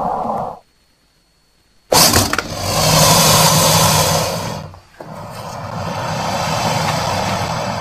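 Crocodile growling. A growl breaks off, and after about a second of silence comes a loud, hissing growl, then a second, longer growl with less hiss.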